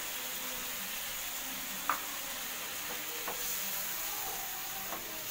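Masala sizzling in a frying pan over a gas flame while it is stirred with a silicone spatula, being cooked down until the oil separates; a light click about two seconds in.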